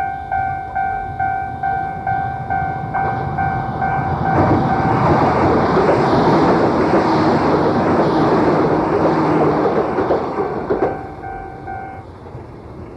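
Japanese railway level-crossing alarm ringing in quick, even pulses, a little under three a second. A Keio Inokashira Line train runs through the crossing about four seconds in, its passing noise drowning the alarm. As the train clears, the alarm is heard again and stops about twelve seconds in. The sound is dulled by an old cassette-tape recording.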